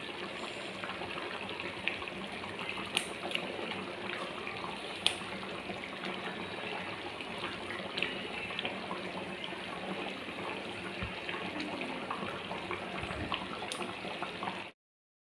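A steady watery rush, like running or bubbling liquid, with scattered small clicks and crackles through it.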